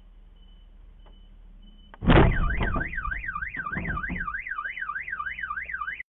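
A car hits the back of a truck with a loud bang about two seconds in, followed by a few more knocks. A car alarm then wails, its pitch sweeping up and down about three times a second, until it cuts off suddenly near the end.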